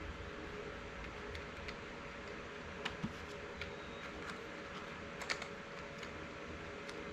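Faint scattered clicks and light taps of tools and metal parts being handled on a workbench, a few close together around three seconds in and the sharpest a little past five seconds, over a steady low hum.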